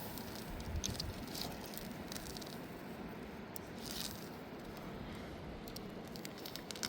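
Light rattling and rustling handling sounds, a few short clicks, over a steady background rush.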